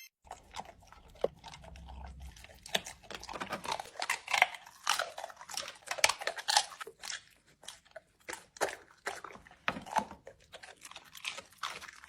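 An animal eating, with irregular crisp crunches and chewing, several a second and uneven in loudness.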